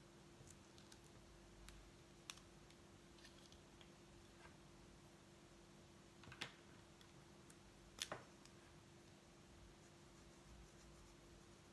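Near silence with a faint steady hum, broken by a few short plastic clicks as felt-tip pens are put down and picked up on a wooden desk. The loudest clicks come about six and a half and eight seconds in.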